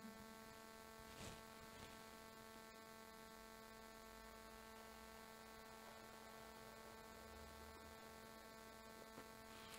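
Near silence: a faint, steady electrical hum made of several even tones, with one faint click about a second in.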